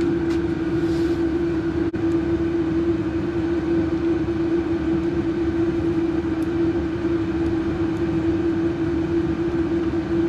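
A steady mechanical hum: one constant mid-pitched tone over a low rumbling noise, unchanging throughout, with a few faint clicks.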